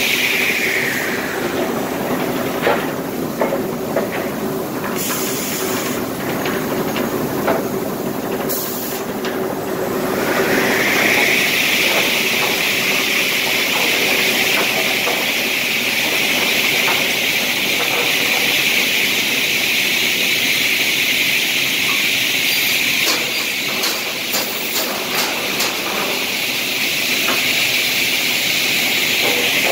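Retro C component saw running: its circular saw blades and chain conveyor make a steady mechanical din with a high whine that sinks in pitch about a second in and climbs back about ten seconds in. Scattered knocks and clacks of wood and metal, in clusters early on and again around 23 to 26 seconds in.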